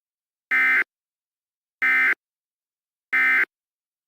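Emergency Alert System SAME end-of-message data tones: three short buzzing bursts of digital data, each about a third of a second long and evenly spaced, signalling the end of the alert.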